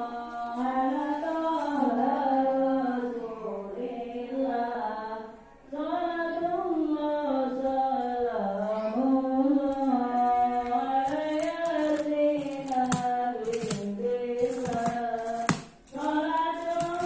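A single voice singing a slow, wavering melody with held notes and two short breaks between phrases. Sharp crackles break in over the last few seconds.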